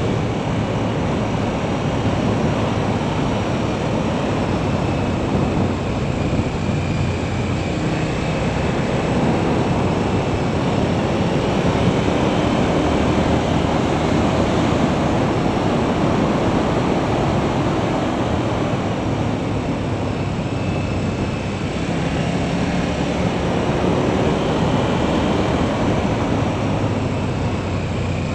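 Motorcycle riding at about 40 mph: wind rushing over an action camera's microphone, with the engine running underneath, its note shifting slightly through the curves.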